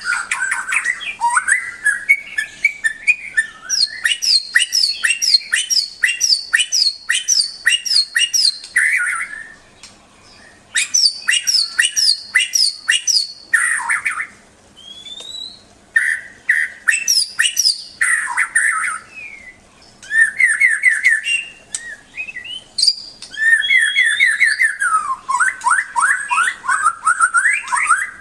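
A murai, a Copsychus songbird, singing a varied song: fast runs of repeated sharp notes and trills, clear rising and falling whistles, broken by a few short pauses.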